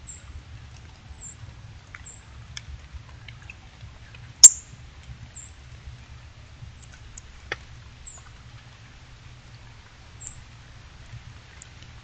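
Northern cardinal giving short, high chip calls, about one every second or two, over a steady low rumble. A loud sharp click sounds about four and a half seconds in, and a fainter one about three seconds later.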